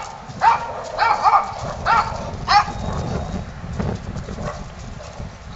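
Small dogs yapping: about five high, sharp barks in quick succession over the first three seconds, then they stop.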